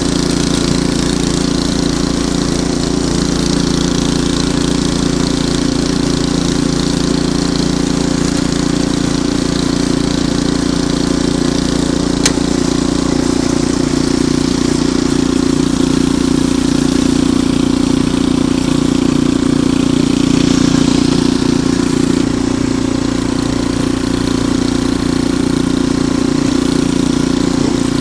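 Ariens Deluxe 28 snowblower's single-cylinder four-stroke engine running steadily at a constant speed. There is a single sharp tick about halfway through.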